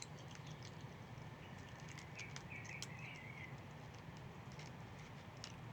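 Faint pre-dawn outdoor ambience: a steady low hum with scattered light ticks and clicks, and a short warbling chirp, like a bird call, about two seconds in.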